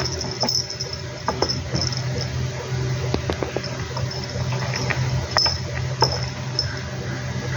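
Young kitten giving a few short, high mews over a steady low hum, with scattered small clicks.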